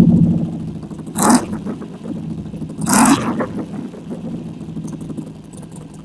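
2012 Harley-Davidson Sportster 883 Iron's 883 cc V-twin running through a Supertrapp 2-into-1 SuperMeg exhaust, just started and settling down to idle, with two short throttle blips about a second and three seconds in. It has a good, deep tone.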